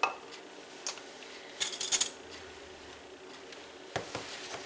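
Scattered clicks and clinks of kitchen utensils and jars being handled on a countertop. A cluster of sharp clinks comes just under two seconds in, then a couple of duller knocks about four seconds in as a mayonnaise jar is picked up.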